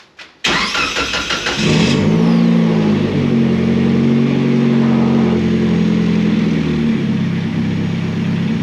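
An offroad race car's engine cranked on the starter for about a second and a half, catching and then running steadily at idle.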